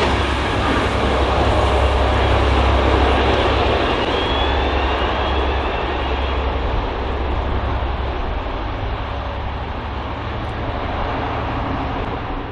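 V/Line N class diesel-electric locomotive running light engine, passing close and pulling away: a steady low engine drone with wheel-on-rail noise that slowly fades as it recedes.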